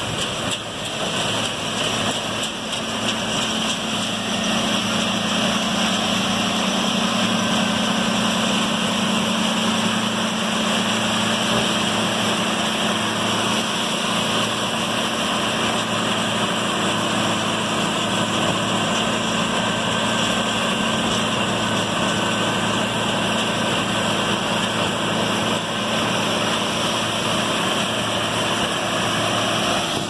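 Gleaner C2 combine harvesting soybeans: a steady engine drone under load, mixed with the constant rushing noise of its header and threshing works.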